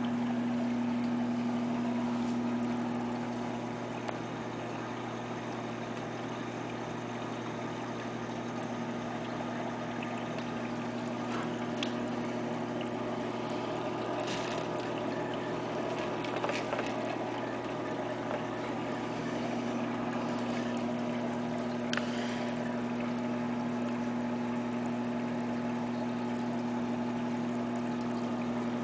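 Aquarium pump running: a steady electrical hum with water pouring and trickling over it, and a few faint clicks.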